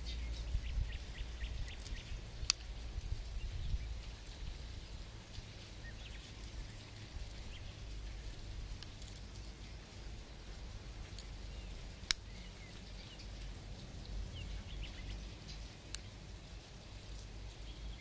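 Small metal clicks of a Victorinox Swiss Champ's tools snapping open and shut on their springs, three of them sharp and spread apart, with fainter ticks of handling in between, over a low rumble.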